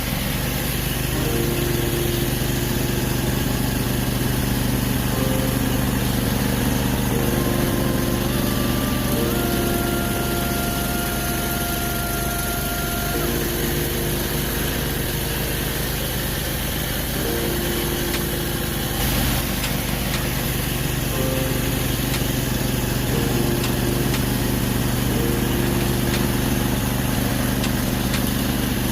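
Gas-engine pressure washer running steadily, with the hiss of the spray.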